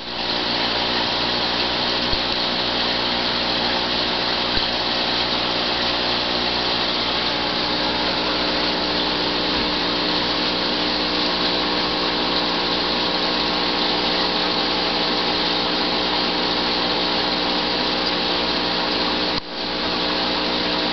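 Aquarium pump running steadily: a constant mechanical hum under a hiss of moving, bubbling water. It drops out for a moment near the end and comes straight back.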